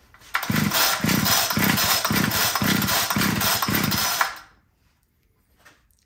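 Homelite two-stroke string trimmer's recoil starter pulled over and over, the engine cranking against its compression with the spark plug out and a compression gauge fitted, about two strokes a second for some four seconds before it stops. It is making about 100 psi, which is good compression.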